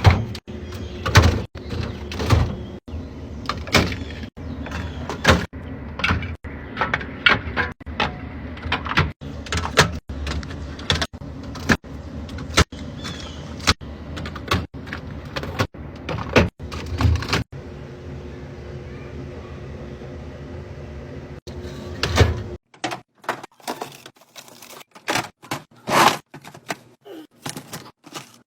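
Plastic containers, lids and fridge drawers being clicked, knocked and slid into place while a refrigerator is restocked: a run of sharp clacks and taps over a steady hum. About two-thirds of the way through the hum stops abruptly, and the taps go on against a quieter background.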